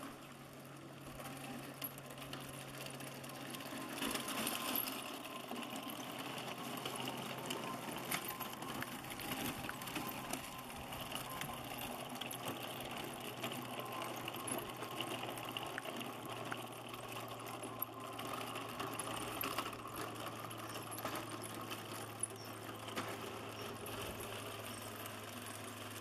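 Electric drive motors and gearing of a scratch-built 1:6 scale radio-controlled M113 model whining steadily as it drives, with no sound unit fitted yet. Its tracks crunch and click over gravel.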